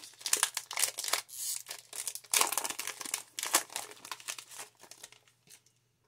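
Foil Pokémon booster pack wrapper crinkling and tearing open in a dense run of crackles, dying away about five seconds in.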